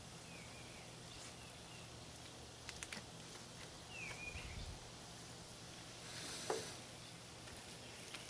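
Quiet rural outdoor background with a few short, faint chirps and light clicks as fibreglass cloth is handled on a wooden frame. About six and a half seconds in comes a brief swish with a sharp falling squeak, the loudest sound.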